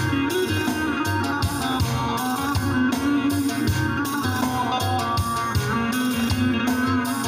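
Instrumental break of a Turkish folk song played by a wedding band: a melody instrument playing a running tune over bass and a steady drum beat.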